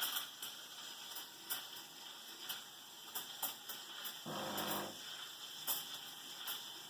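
Steam wand of a modified Gaggia Baby Class, fitted with a three-hole Rancilio Silvia steam tip, hissing steadily while frothing milk. About four seconds in, the machine's pump hums briefly, refilling the boiler during steaming.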